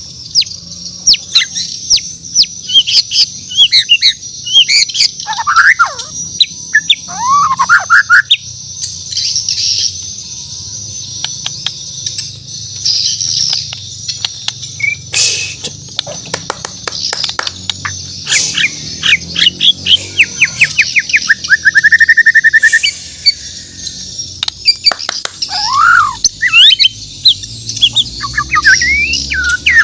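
A Bornean white-rumped shama (murai batu) singing a loud, varied song of sharp chirps and whistled sweeping notes, with a fast run of repeated notes about two-thirds of the way through. A steady high hiss runs underneath.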